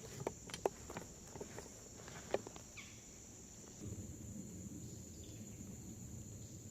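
Steady high-pitched drone of insects, crickets, in the woods. A few short sharp clicks or snaps come in the first two and a half seconds, and a low rustling starts about four seconds in.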